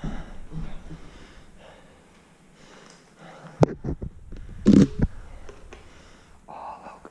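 A few sharp knocks and a louder scuffing thump about two-thirds of the way through, footsteps and handling on a bare, damaged floor, with faint murmured voices near the start.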